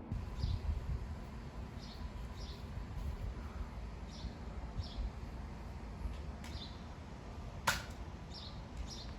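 Short, faint, high bird chirps repeated every second or so over a low rumble, with one sharp click about three-quarters of the way through.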